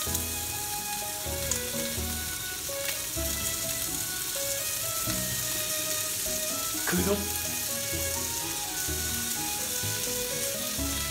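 Thin slices of beef sizzling steadily in hot oil in a frying pan.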